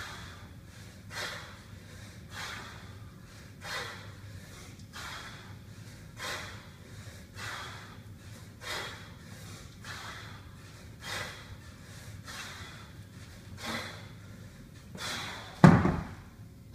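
A lifter's short, forceful breaths, evenly spaced about every second and a quarter, in rhythm with repeated kettlebell cleans. Near the end the 32 kg kettlebell is set down on the wooden floor with a loud thud.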